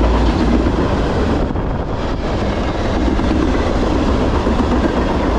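Freight cars of a CSX manifest train rolling past at about 49 mph: a loud, steady rumble of steel wheels on rail.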